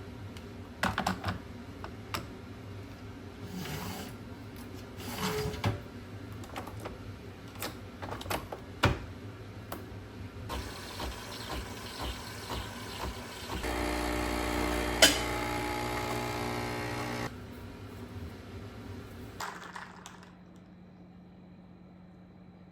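Household handling sounds: scattered clinks and knocks of objects being picked up and set down, with a steady machine hum for about four seconds in the middle, broken by one sharp click.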